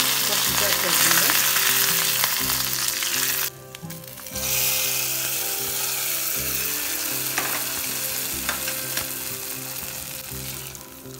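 Hot coconut oil sizzling and spluttering in a kadai as mustard seeds, green chillies and curry leaves fry for a dal tadka. The sizzle drops out briefly about three and a half seconds in, then resumes and slowly fades.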